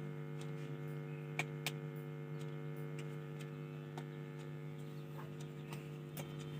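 Steady mains hum from a home theatre amplifier and speaker just powered on for testing, with a few faint ticks.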